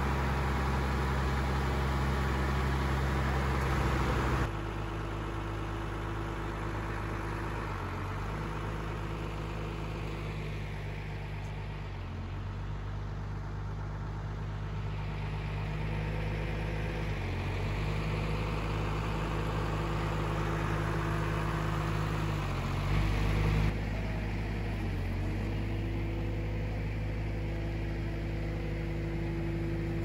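An engine idling steadily, a low even hum that changes abruptly in tone and level about four seconds in and again past twenty-three seconds.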